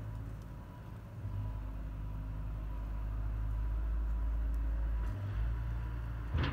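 Low rumble of a road vehicle that swells over a few seconds and then eases, with a short sharp knock near the end.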